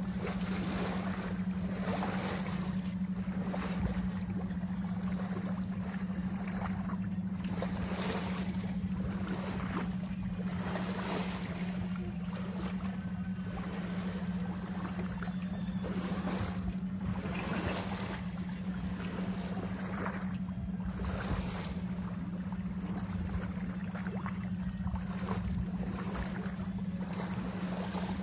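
A boat's motor drones steadily while waves splash against the hull in surges every second or two, with some wind on the microphone.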